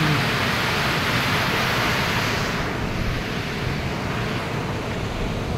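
Steady rush of a waterfall's white water pouring through a narrow rock channel. Its hiss grows duller about halfway through.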